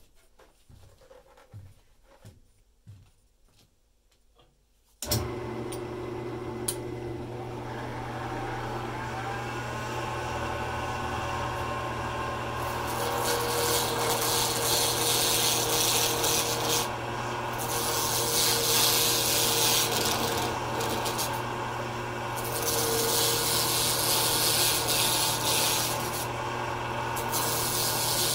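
A lathe motor switches on about five seconds in and runs steadily. Then a sharp skew chisel cuts a spinning black acrylic pen blank on a pen mandrel: a hissing scrape in several long passes, with brief pauses between them. Before the lathe starts there are a few faint knocks.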